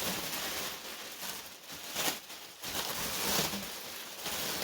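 Bubble wrap and plastic packing material rustling and crinkling as it is handled and pulled from a shipping box, in uneven surges with the loudest about two seconds in.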